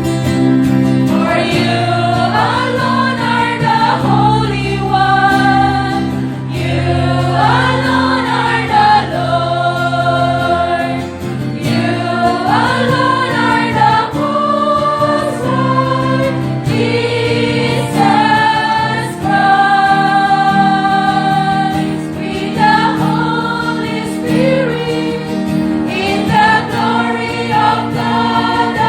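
Church choir singing a hymn with a steady accompaniment underneath, a choir sound test.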